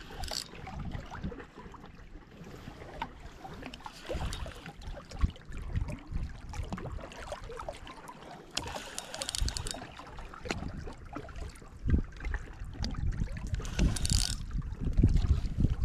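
Wind buffeting the microphone over water lapping at the shore, with short hissing bursts every four to five seconds.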